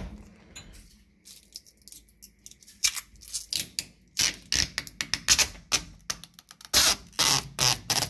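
Plastic protective film being peeled off a dishwasher's stainless steel rail: the adhesive lets go in a string of sharp, irregular crackles. They start about three seconds in and come thickest near the end.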